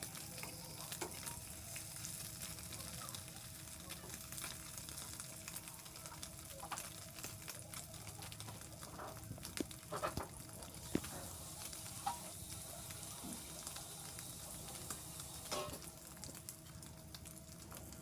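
Hilsa fish roe frying in hot oil in a pan: a steady sizzle with scattered pops and crackles, a few louder pops about halfway through.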